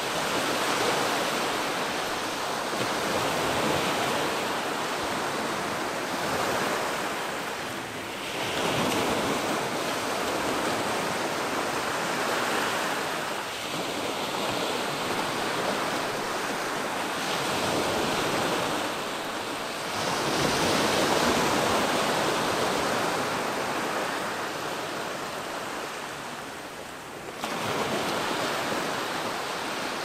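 Ocean waves washing onto the beach: a continuous wash of surf that swells as each new wave breaks every several seconds, then ebbs.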